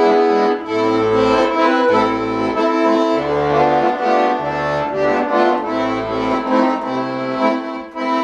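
Bayan (Russian button accordion) playing a melody in held notes and chords over separate bass notes that change about every second.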